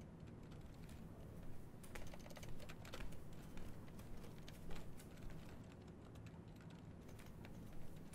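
Faint, irregular clicking of typing on a laptop keyboard.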